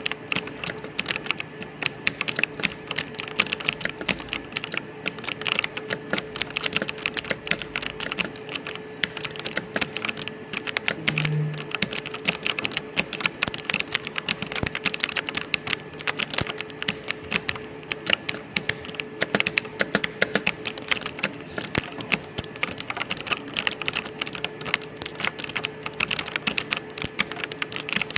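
Fast, steady typing on a computer keyboard: quick, irregular keystroke clicks at several a second, with no real pauses.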